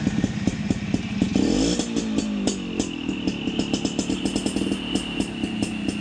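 Kawasaki HD3 125cc two-stroke motorcycle engine running with a rapid crackle of ticks, revved up and back down once between about one and a half and two and a half seconds in.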